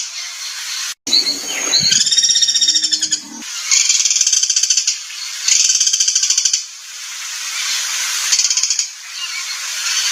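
Recorded songbird calls used as harsh tutoring material for caged contest birds: rapid, buzzy, high trills repeated in bursts of about a second. Near the start a sudden cut brings in a harsher call with lower notes, lasting about two seconds.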